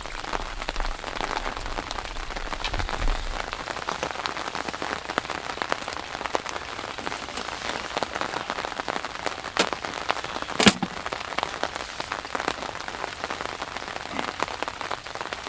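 Steady rain pattering, a dense patter of small drops, with one sharp knock about two-thirds of the way through.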